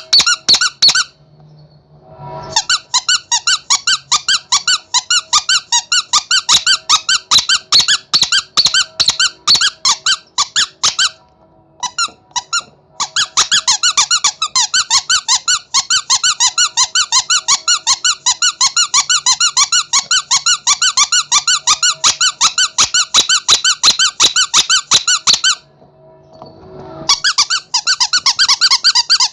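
Rubber monkey squeaky toy being squeezed over and over: rapid shrill squeaks, several a second, with three short pauses.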